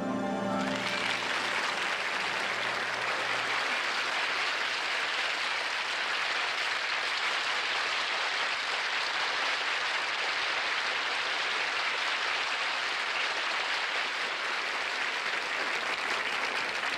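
The music's last held chord ends within the first second, then an audience applauds steadily.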